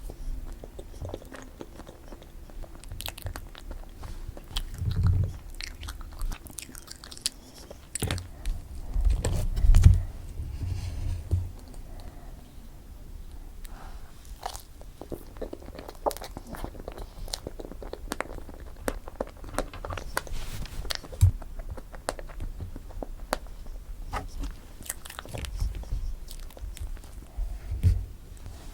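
Close-miked eating of strawberry cream cake: biting and chewing, with many short wet clicks and a few deep thumps, the loudest about ten seconds in.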